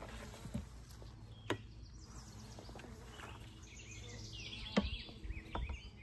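Birds chirping outdoors, with a few sharp clicks of handling, the loudest a little before the end, over a steady low rumble.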